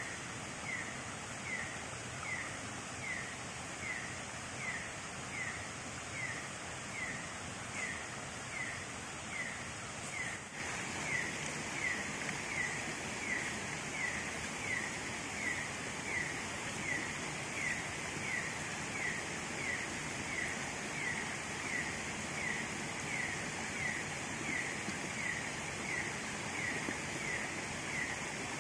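Night jungle ambience: a steady hiss with an animal's short, falling chirp repeated evenly about every 0.8 seconds. The whole sound gets louder about ten seconds in.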